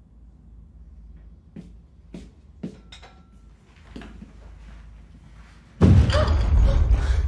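A few faint knocks, then about six seconds in a sudden deep, loud rumbling boom with a rattling edge that keeps going: the distant blast of the Chernobyl reactor explosion reaching a nearby apartment.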